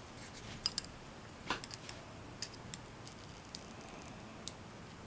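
Light irregular metallic clicks and a short scrape from a thin steel tool working inside a brass lock plug while the plug is being gutted of its pins.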